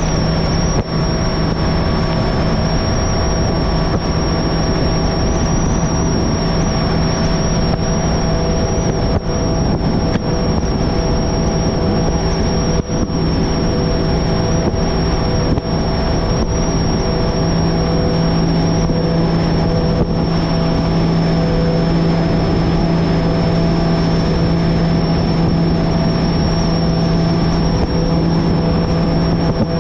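Bass Cat Lynx bass boat on a top-speed run, its Mercury outboard held at a steady high throttle. A constant engine drone with a high whine runs under a broad rush of wind and water, with no change in pitch.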